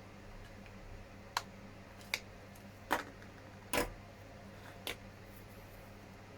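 Small hard plastic model-kit parts clicking and tapping as they are handled and fitted together: five separate clicks at uneven intervals over about four seconds.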